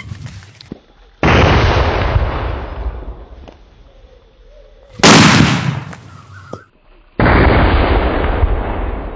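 A chocolate bomb firecracker exploding inside a clay pot. Three loud, sudden bangs are heard, about a second, five seconds and seven seconds in, each dying away over a second or two. The middle bang is the loudest and sharpest.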